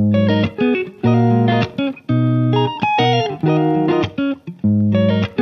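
Background music: a plucked guitar playing chords in short phrases, with brief gaps between them.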